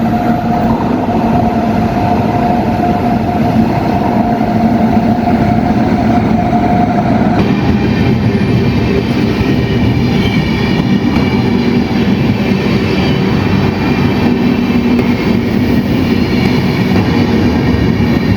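Passenger train pulling into the station platform, with a loud, steady rumble and rattle of the rolling cars. A steady tone runs through the first seven seconds or so and then stops.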